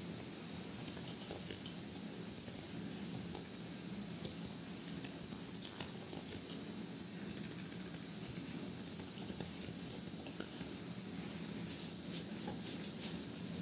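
Light clicks of typing on a laptop keyboard, coming in irregular clusters, over a steady low hum.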